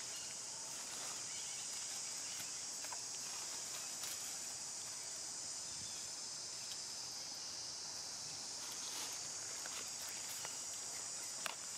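Steady high-pitched insect chorus, with a few faint clicks and rustles now and then.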